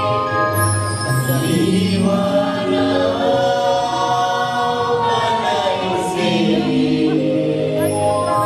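A mixed choir of men and women singing a Bengali folk song in harmony, holding long notes that shift in pitch every second or two.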